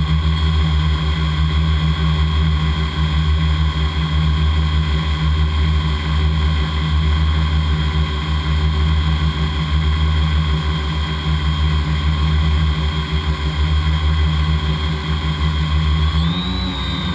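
Multirotor drone's electric motors and propellers whining steadily while it hovers, several pitches held together over a low hum. Near the end the whine rises in pitch as the motors speed up.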